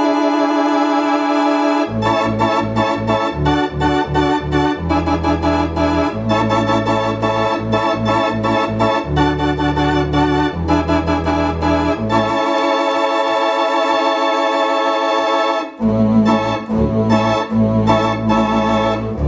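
Allen Digital Theater Compact electronic theatre organ playing sustained chords on its two manuals with a wavering tremulant, with bass notes that come and go and drop out for a few seconds past the middle.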